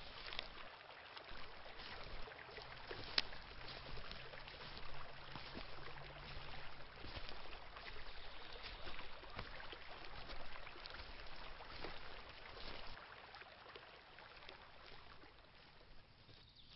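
Footsteps on a dry conifer-forest floor, crunching needles and snapping small twigs, with irregular light cracks and rustles.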